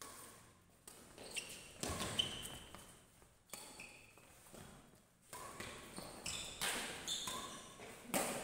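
Badminton rally: a shuttlecock struck back and forth by racquets, a sharp hit about every second or so, with short squeaks from players' shoes on the court, echoing in a large hall.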